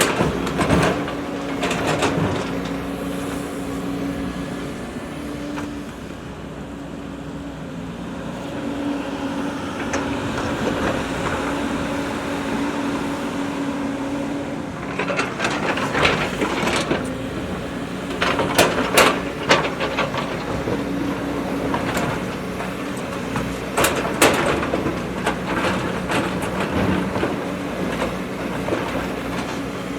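Backhoe loader's diesel engine running steadily under load, with sharp metallic clanks and knocks at intervals, a cluster of them about halfway through.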